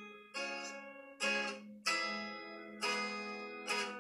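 Acoustic guitar strummed in a blues style: about five chords, each struck sharply and left to ring and fade, with a low note sounding underneath.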